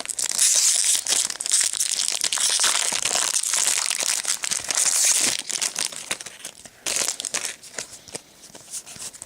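A booster pack's plastic wrapper being torn open and crinkled: a dense crackling rustle for about six seconds. It thins out into scattered soft clicks as the cards are handled.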